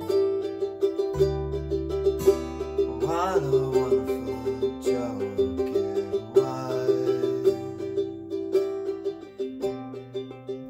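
Ukulele and acoustic guitar strumming chords in a steady rhythm, with an electric bass playing held notes beneath them.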